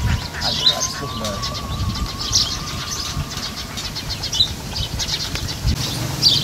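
Outdoor ambience: small birds give short high chirps every second or two over a low rumble, with a faint, thin wavering whine.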